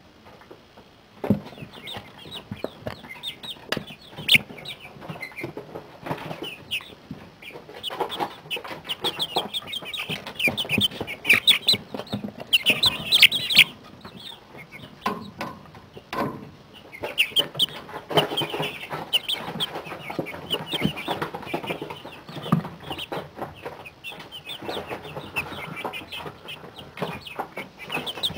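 A brooder full of 40-day-old chicks peeping and clucking, many short calls overlapping, busiest in the middle and later part. A few sharp knocks stand out, the first about a second in.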